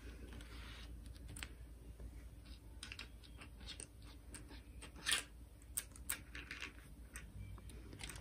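Scattered light taps and clicks of a cat's paws batting at a small stick toy on a carpet scratcher mat and wooden floor, the sharpest tap about five seconds in.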